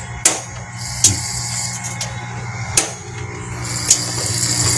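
Scattered sharp clicks, roughly a second apart, over a steady hiss and low hum, as a biogas stove is being lit.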